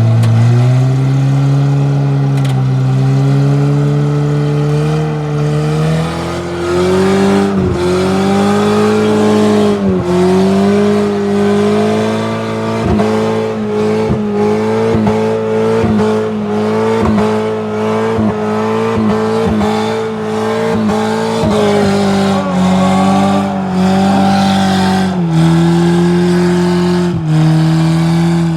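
Off-road vehicle's engine revving hard and held at high revs, the pitch dipping briefly again and again, then stepping down twice near the end.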